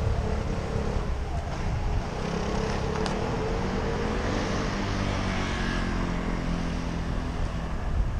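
Street traffic heard from a moving bicycle: nearby car engines running, one of them shifting in pitch as it passes, over a low rumble of wind on the microphone.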